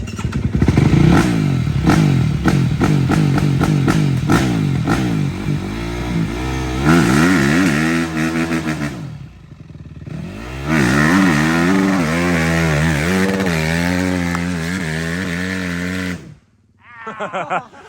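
Dirt bike engine running as the bike is ridden, its pitch rising and falling with the throttle, with a rapid clattering over the first few seconds. The revs drop about halfway through, pick up again, then the sound cuts off suddenly near the end.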